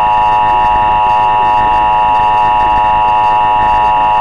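Emergency Alert System attention signal: a loud, steady two-tone alarm, harsh and full of overtones, held without a break. Television ad speech runs faintly beneath it.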